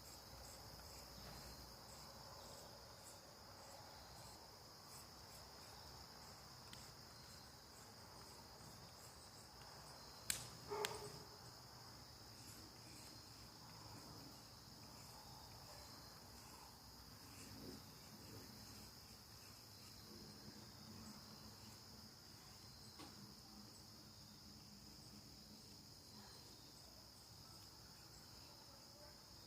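Steady, faint night-time chorus of crickets, with two sharp clicks close together about a third of the way in.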